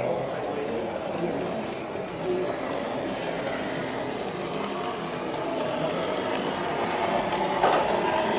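Steady background noise of a busy exhibition hall, a low even drone with no clear voices, and a brief knock near the end.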